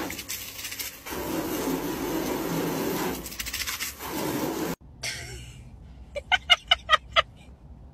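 Water spraying hard from a garden hose nozzle, a steady hiss that cuts off abruptly about five seconds in. Near the end, a quick string of about six short pitched sounds.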